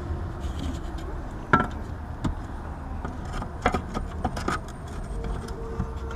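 Scattered sharp clicks and knocks of hands and tools working on an air conditioner's electrical disconnect, over a steady low rumble; a faint steady tone comes in near the end.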